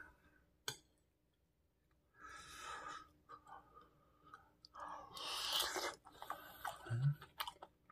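Close-up eating sounds: a spoonful of kimchi fried rice with fried egg taken into the mouth and chewed, with small wet mouth clicks and breaths in between, and a short low sound near the end.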